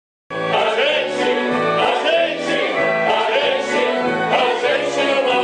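Classical-style singers with vibrato over a live orchestra playing sustained chords.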